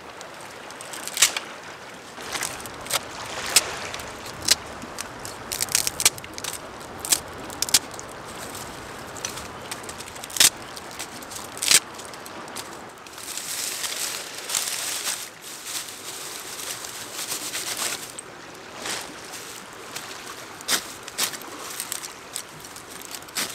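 Dry twigs snapping and dry straw rustling as kindling is broken and laid out by hand, with a scattering of sharp cracks through the first half and a longer rustle of straw in the middle.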